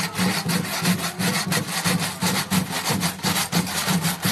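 Rhythmic percussion: dry shaken or scraped strokes, about four or five a second, over a low pulsing thud.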